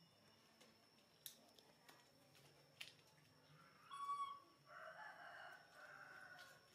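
A short, high call about four seconds in, then a faint rooster crow lasting about a second and a half. A couple of light ticks come earlier.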